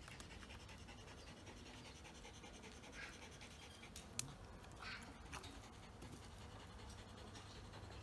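Faint scratching of a cat's claws on tree bark as it climbs through the branches, with one sharp click about four seconds in.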